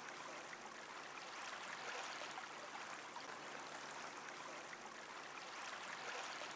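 Small waves lapping and washing gently over a flat sandy shore at the water's edge, a soft even hiss of water that swells and eases slightly.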